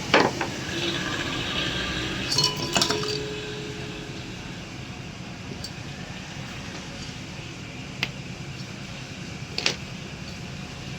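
Several separate sharp metallic clinks and knocks, as of hand tools and metal parts being handled, the loudest right at the start, over a steady background hum.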